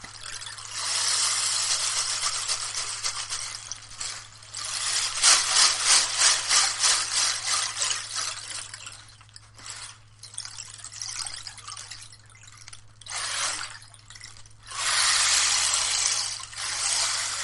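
Handmade Sea Egg rainstick played in slow tilts, its filling pouring through in rushing swells like waves over pebbles. About five seconds in, a stretch of quick, even shaking pulses.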